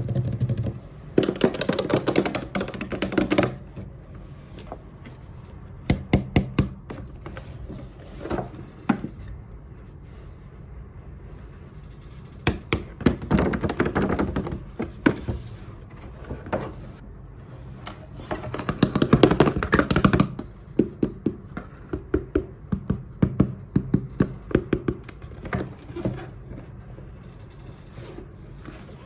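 Miniature plastic toy kitchen set being unboxed and handled: clusters of light clicks, taps and knocks from small plastic pieces, with three bursts of rustling.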